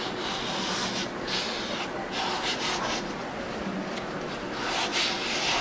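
Chalk writing and drawing on a blackboard: a run of short, scratchy strokes.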